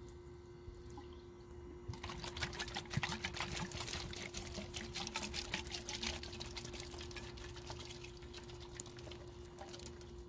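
Water poured from a plastic bottle onto potted pepper and tomato seedlings, splashing on the leaves and soil. The pour starts about two seconds in and tapers off over the last few seconds.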